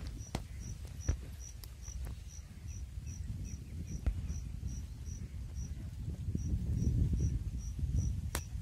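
An insect chirping in a steady rhythm, about three short high chirps a second, with a short break about six seconds in, over low rumbling and a few faint clicks.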